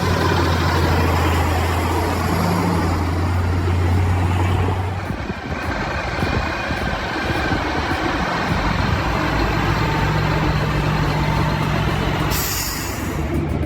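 Heavy diesel truck engine running, with a steady deep hum that changes about five seconds in.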